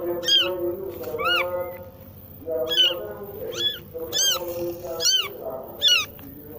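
Newborn kittens mewing: about eight short, high mews that rise and fall in pitch, with a lower, longer drawn call under several of them.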